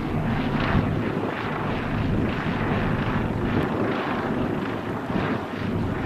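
Helicopter rotor and engine drone, steady, mixed with wind rumbling on the microphone.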